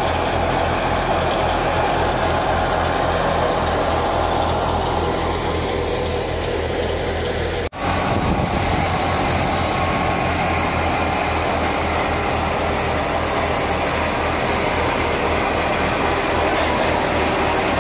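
Fiat 480 tractor's diesel engine running steadily while driving a wheat thresher: a fast low engine chug under a steady wash of machine noise. The sound cuts out for an instant about eight seconds in.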